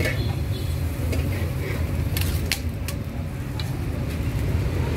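Steady low rumble of background noise, with a few sharp clicks about halfway through.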